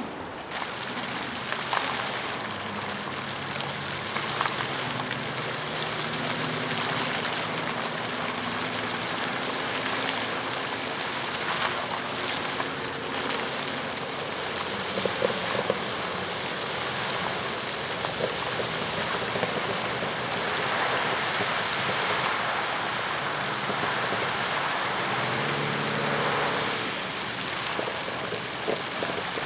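Fountain water splashing and falling steadily in a dense, even rush.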